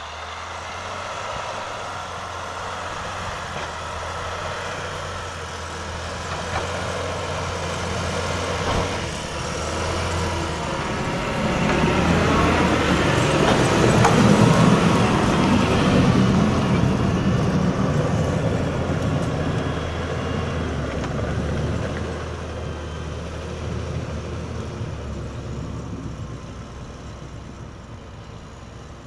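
A JCB Fastrac 2140 tractor's diesel engine running steadily as it plows snow. It grows louder as the tractor passes close by about halfway through, then fades as it drives away.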